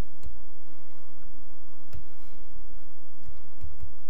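Faint clicks and taps of a stylus on a pen tablet during handwriting, with a few soft low thumps near the end.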